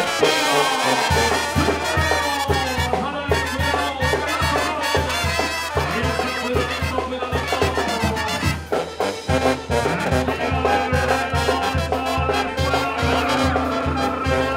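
Mexican banda music with trumpets and trombones playing a melody. A steady low beat of bass horn and drum comes in about a second in.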